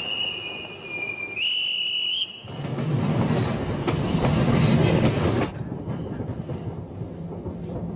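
A steady high whistle lasting about two seconds, stepping up in pitch halfway and cutting off, as the train is signalled away. Then a train pulls out with a loud rumbling run of about three seconds, which drops to a quieter rolling sound.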